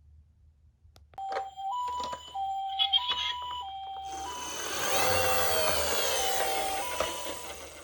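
Toy ambulance minicar's electronic two-tone siren, alternating a low and a high note about every half second in the Japanese ambulance pattern, with a few clicks as it starts. From about four seconds in a loud rushing noise joins it as the toy rolls on its wheels down the cardboard slope, and both fade near the end.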